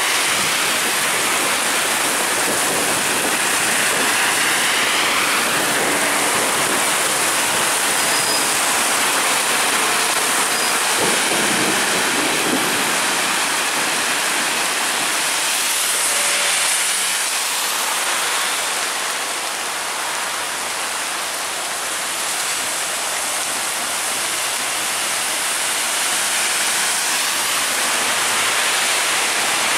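Heavy rain pouring down in a steady, loud hiss, with buses and other traffic swishing through standing water on the road; the tyre spray swells and fades a few times as vehicles pass.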